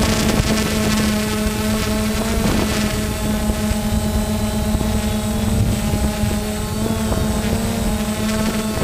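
DJI Phantom FC40 quadcopter's four electric motors and propellers running in flight, heard from on board as a steady buzzing hum of nearly constant pitch over a low rumble.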